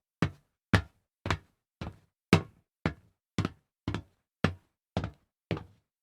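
Foley sound effect: a steady series of hard knocks, about two a second, each dying away quickly.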